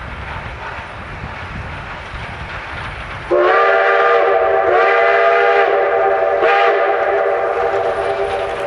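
Steam locomotive's chime whistle sounding one long blast, beginning suddenly about three seconds in: a chord of several steady tones that rises slightly in pitch as it opens and wavers briefly twice. Before it, a faint low rumble of the approaching train.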